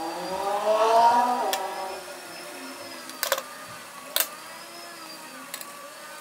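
A rising squeak for about a second and a half as gloved fingers peel the clear waterproof coating and adhesive backing off the end of an LED strip. Then a few sharp snips of scissors trimming the strip.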